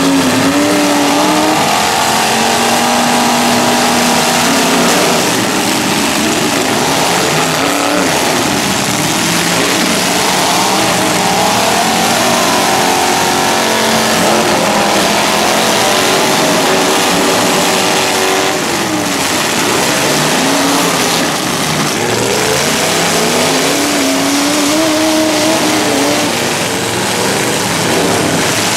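Several full-size demolition derby cars revving hard at once, their engine pitches rising and falling as they accelerate, reverse and ram each other. The odd crunch of a collision cuts through now and then.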